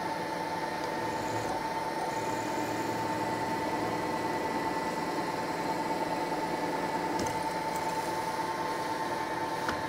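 Milling machine spindle running at about 1200 rpm with a steady whine while a small, freshly sharpened twist drill bores through a metal workpiece.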